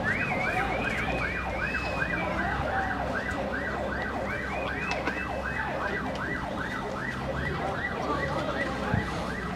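Electronic siren in a fast yelp, its pitch sweeping up and down about three times a second. During the first couple of seconds, and briefly again midway, a second, higher siren sweeps more slowly over it.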